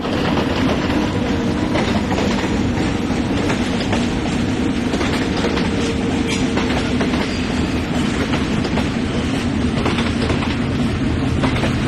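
DF4D diesel locomotive hauling a train of 25G passenger coaches past: a steady diesel engine drone mixed with the clatter of the coaches' wheels over rail joints, with many irregular clicks.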